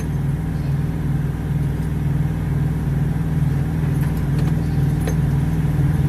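A steady low engine drone with a faint regular throb, like a diesel idling close by, with a few light clicks about two-thirds of the way through.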